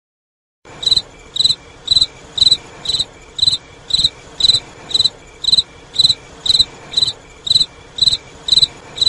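Crickets sound effect added in editing as an awkward-silence gag: an even cricket chirp repeating about twice a second. It cuts in abruptly after a brief moment of dead silence.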